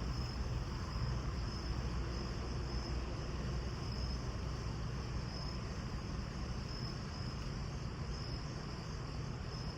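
Cricket chirping in short, high, evenly spaced pulses about twice a second, over a steady low hum.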